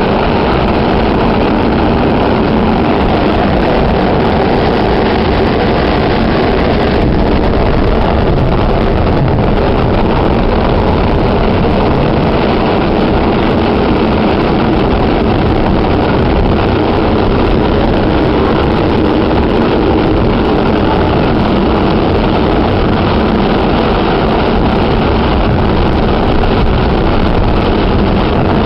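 Staten Island Railway electric train running at speed, heard from inside the car: steady, unbroken track and running noise.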